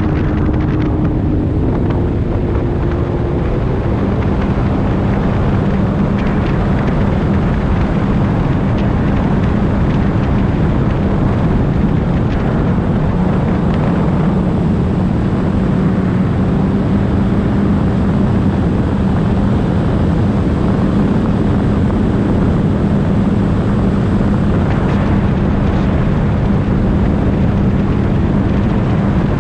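Jet ski engine and jet pump running at steady cruising speed, a constant drone under a loud rush of wind and water. The engine tone shifts lower about four seconds in, then holds steady.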